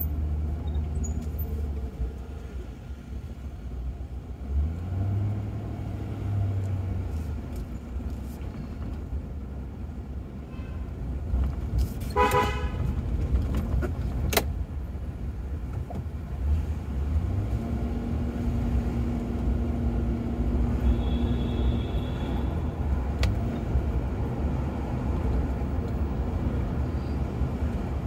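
Ford Crown Victoria driving through city traffic, its engine and road rumble heard from inside the cabin. A car horn toots once, briefly, about twelve seconds in, and a sharp click follows a couple of seconds later.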